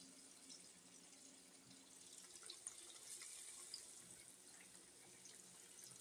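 Green tomato slices frying in hot oil: a faint, steady sizzle with scattered small crackles.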